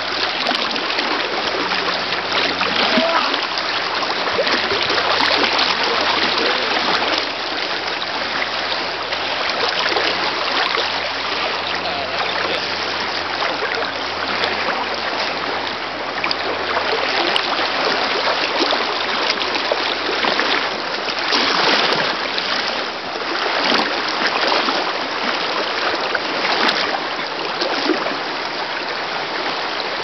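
Shallow river water rushing steadily over a riffle close by, with a few brief louder surges in the second half.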